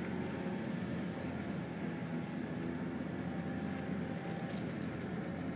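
Car engine and road noise heard from inside the cabin, a steady drone, with a few faint clicks near the end.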